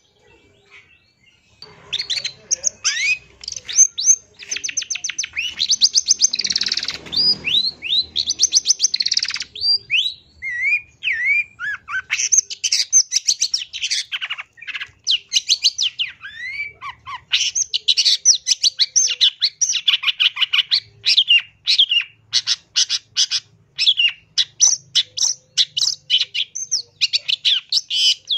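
Long-tailed shrike singing a fast, varied chattering song of rapid trills and sharp downslurred notes, with a harsh, buzzy stretch about six seconds in. The song starts about a second and a half in and goes on in quick bursts of notes.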